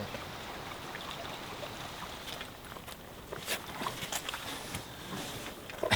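River water running steadily, with scattered light clicks and knocks from about two seconds in.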